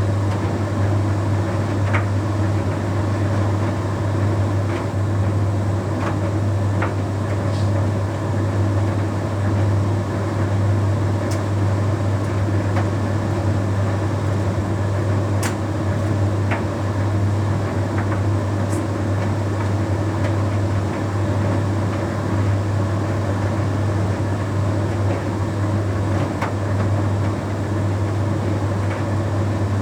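Bosch Series 6 heat pump tumble dryer running mid-cycle on its Shirts programme: a steady low hum under an even rush of air as the drum turns, with occasional light clicks.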